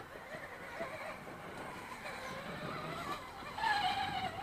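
Electric motor and drivetrain of a Traxxas Slash RC truck whining, the pitch rising and falling as the throttle is worked. The whine is loudest near the end, where its pitch falls.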